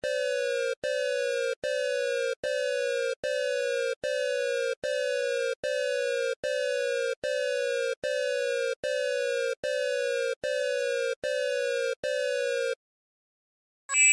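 Electronic alarm tone: a short beep that falls slightly in pitch, repeated about sixteen times at a little over one a second, then stopping abruptly about thirteen seconds in.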